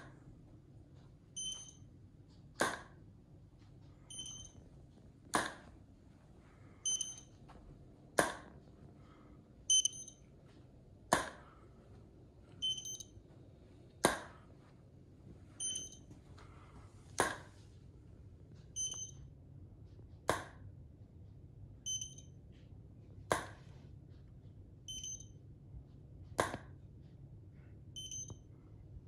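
Elinchrom ELC 500 Pro HD studio strobes firing about every three seconds, each flash a sharp click. About a second and a half after each flash comes a short high beep: the strobe's ready signal that it has recharged for the next flash.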